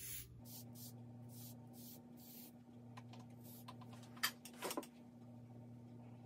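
Stick of vine charcoal being sharpened on a sandpaper paddle: a series of short, soft rasping strokes, with a light tick and a few louder scrapes about four seconds in.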